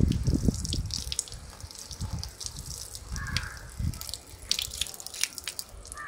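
Water jetting from a pinhole in a taped, water-filled balloon, splashing and dripping in an irregular patter, with low bumps in the first second.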